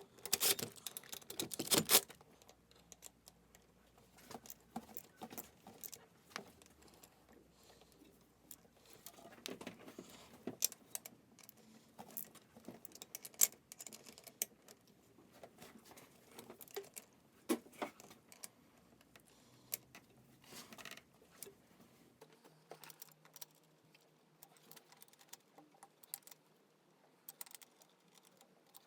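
Light metallic clicks and clinks of tools and engine parts being handled, scattered and irregular, with a short louder flurry in the first two seconds.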